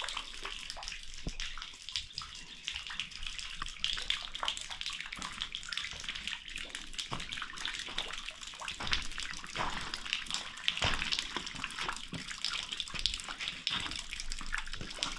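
Trickle of a small waterfall: a steady hiss of falling water, sprinkled with many small splashes of separate drops.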